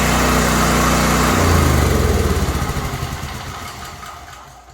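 Small portable generator engine running steadily, after a stuck carburetor float was freed and stale fuel drained from the bowl. About a second in, the steady hum breaks up and the engine winds down and fades over the next three seconds as it is shut off.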